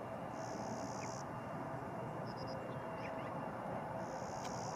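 Steady distant hum of airliner engines idling, with small birds chirping and giving high, buzzy trills about a second long, one near the start and another near the end.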